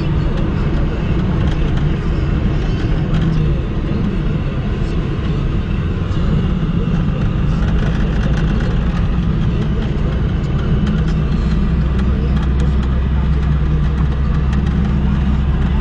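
Car engine and tyre noise heard from inside the cabin while driving: a steady low drone over an even road hiss, deepening slightly about seven seconds in.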